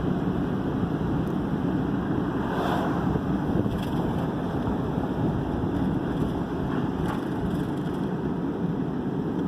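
Steady road noise heard from inside a moving car's cabin: tyres and engine making an even low rumble.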